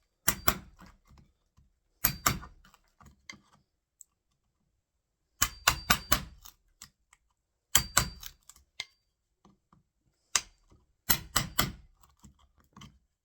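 A wood chisel being struck in quick bursts of three to five blows, chopping out the recess for a door latch's strike plate in a timber door frame; about six bursts with short pauses between.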